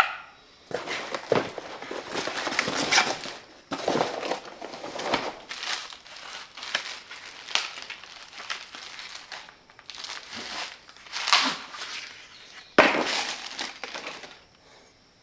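Packaging crinkling and rustling in irregular bursts as tool parts are pulled out of their wrapping and box.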